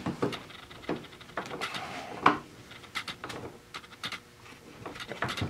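Irregular light clicks and knocks of metal parts being moved by hand, with one sharper knock a little past two seconds in. These are transmission and drive parts being worked to line up the bolt holes and splines during installation.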